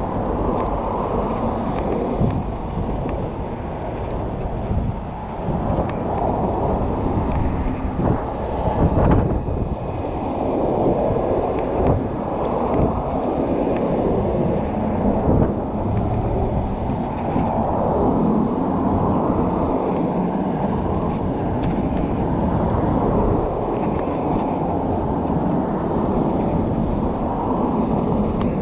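Scooter rolling over a concrete sidewalk: a steady rumble from the wheels on the pavement, with an occasional louder knock over a joint or bump.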